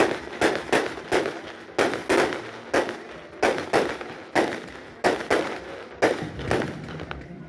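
Fireworks going off in rapid succession: a steady string of sharp bangs, about two a second, each trailing off briefly.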